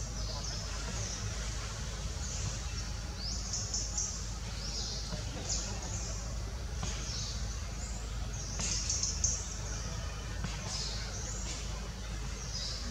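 Small birds chirping, short high calls every second or so, over a steady low hum of background noise.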